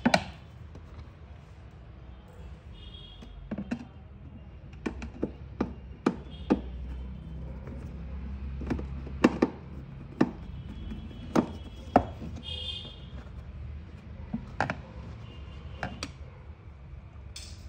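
Screwdriver working the seat screws out of a plastic ride-on toy car: scattered sharp clicks and knocks of the tool against hard plastic, some louder than others, at irregular intervals.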